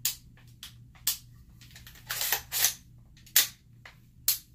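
Smith & Wesson AR-15's action worked by hand as a function check: a series of about seven sharp metallic clacks and clicks from the bolt, charging handle and trigger, the loudest a little after three seconds in.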